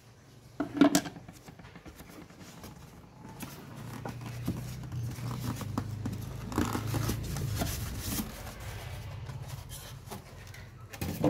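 Cardboard box and its packing being handled: rubbing and scraping as hands reach in and work at the parts inside, with a sharp knock about a second in and another near the end.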